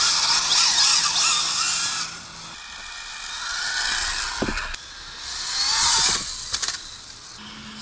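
Traxxas Slash RC short-course truck driving fast on wet pavement: its brushless electric motor whines, rising and falling in pitch as it speeds up and slows, over a hiss of tyres and spray. A few sharp clicks come near the end.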